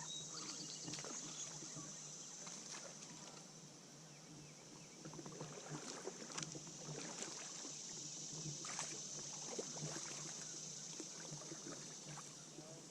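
Faint sounds of a fishing kayak on the river: water moving against the hull, with scattered light knocks and clicks from gear, under a steady high-pitched hiss.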